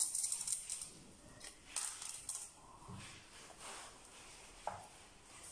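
Scattered light clinks and knocks of a large aluminium pot being handled and set down on a glass tabletop, a few in the first two seconds and a couple of duller thuds later.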